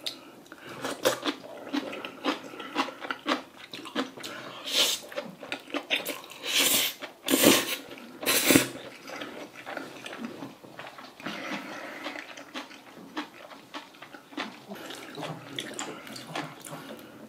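Close-miked eating: chewing and slurping of saucy jjajang ramyeon noodles, with wet mouth smacks throughout and a few loud slurps between about six and nine seconds in.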